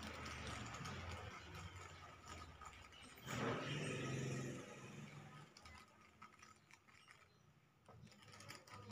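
A domestic tabby cat giving one drawn-out meow about three seconds in, falling in pitch, over a faint low hum.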